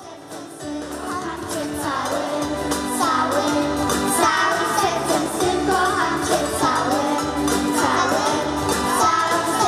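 Children's choir singing a song into microphones with instrumental accompaniment that has a steady bass line, fading in over the first couple of seconds.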